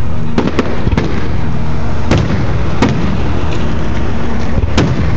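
Fireworks going off in a finale barrage: about half a dozen sharp bangs spread through, over a constant low rumble of continuous detonations.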